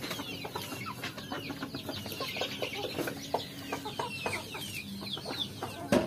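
A flock of local hens and roosters clucking softly while pecking at food, with many short, high chirps that fall in pitch.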